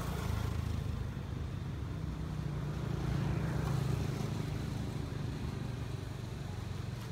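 A motor vehicle's engine running: a low, steady hum that swells a little in the middle and then eases off.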